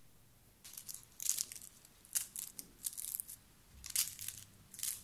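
Crisp, flaky baked börek pastry crackling and crunching as a table knife cuts into its layers, in short, sharp, irregular crunches.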